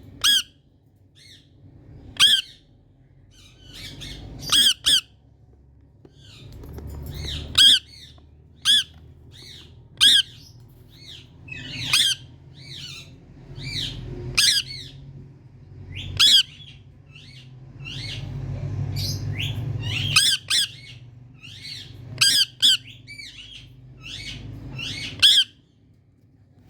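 Indian ringneck parrot giving loud, harsh squawking calls, some single and some in quick pairs, every second or two. A low rumble runs underneath and swells about two-thirds of the way through.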